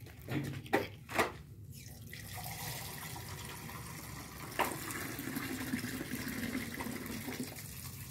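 Water running steadily, like a tap, from about two seconds in and easing off near the end, after a few short knocks and rustles in the first second and a half.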